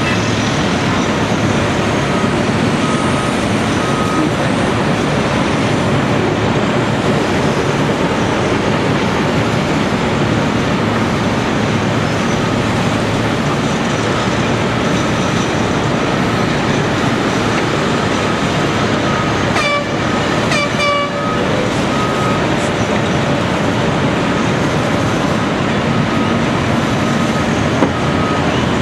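Caterpillar 345C L excavator's diesel engine running steadily and loud while working, with faint intermittent beeping. About twenty seconds in come two short toots, like a horn.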